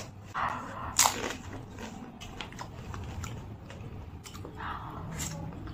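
Close-miked eating sounds: a sharp crisp bite about a second in, then chewing and small mouth clicks.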